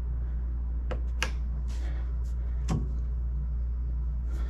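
Turn-signal flasher clicking slowly, a sharp click about every second and a half, with a few lighter clicks between, over a steady low hum. The slow rate comes from only one bulb being wired on that side.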